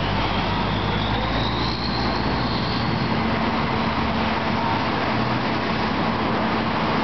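Fire engines driving past, their heavy engines running steadily, with a faint rising whine over the first few seconds.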